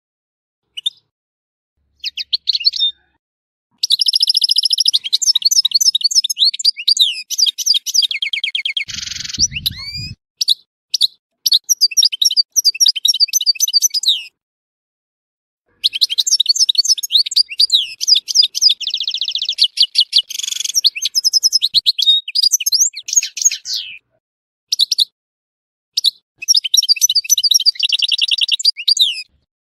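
Algerian goldfinch (European goldfinch) singing: long runs of fast, liquid twittering and trills, broken by pauses of a second or two. A short harsh buzz comes about nine seconds in.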